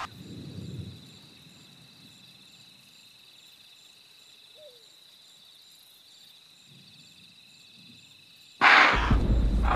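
Quiet natural outdoor ambience with a steady high-pitched drone. Near the end a sudden loud boom hits as dramatic music comes in.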